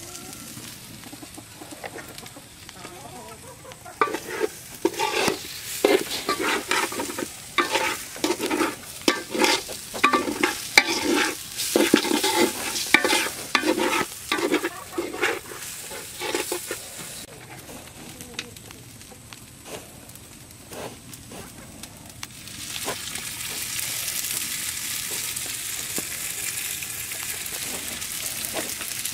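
A long metal spatula scraping and stirring rice in a large metal pot as it fries, in a run of repeated sharp scrapes. Later the strokes stop and the frying rice sizzles steadily.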